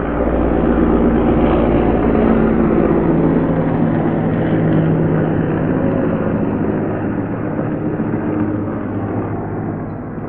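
Helicopter flying overhead and passing by: a loud rotor and engine sound that is loudest over the first few seconds, drops in pitch as it passes, then slowly fades as it moves away.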